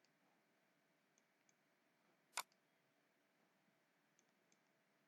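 A single computer mouse click about two seconds in, against near silence.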